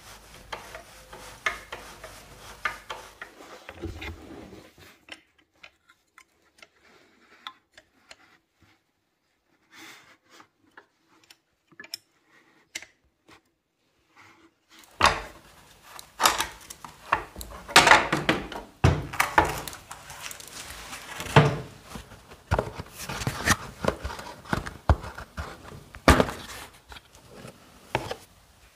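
Metal hand tools clicking, knocking and scraping against scooter parts during disassembly. There are a few quiet clicks at first, and from about halfway a busy run of louder knocks and scraping.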